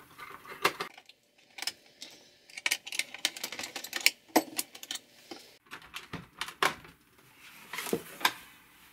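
Irregular plastic clicks and knocks as the TRS-80 Model 200's case parts, its flip-up screen assembly and a plastic trim strip, are handled and worked to fit together; the loudest snaps come a little past four seconds and near the end.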